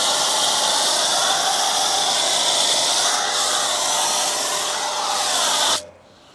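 Foam cannon on a Kranzle pressure washer spraying thick foam onto a car wheel: a loud, steady hiss of spray that stops suddenly near the end.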